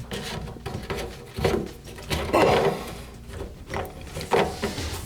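PVC sink drain pipe being unscrewed by hand and pulled apart: irregular plastic scrapes, rubs and knocks, the loudest about two and a half seconds in.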